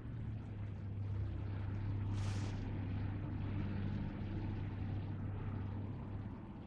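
Low steady hum under a faint rushing noise that swells and fades over a few seconds, with a brief breathy hiss about two seconds in.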